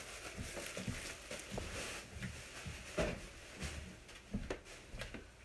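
Groceries being unpacked by hand: a run of light knocks and clicks as packages are handled and set down, with some rustling.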